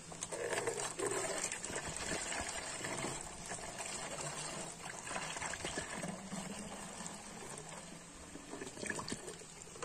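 Liquid poured into a plastic bottle, splashing and trickling as the bottle fills up; the pour starts suddenly.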